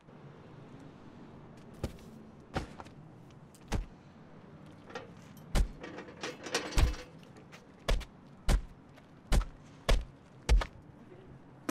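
Punches and body blows landing in a fight: about ten heavy thuds, coming faster and harder in the second half.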